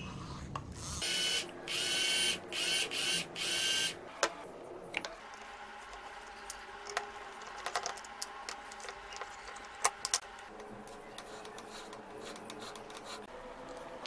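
Workbench handling of an old electric drill. About five short high-pitched whirring bursts come in the first few seconds, then scattered clicks and taps of a screwdriver taking out the screws of the drill's plastic casing and the housing being opened.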